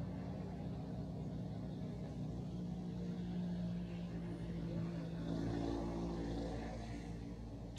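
An engine running steadily as a low drone, growing a little louder for a couple of seconds about five seconds in.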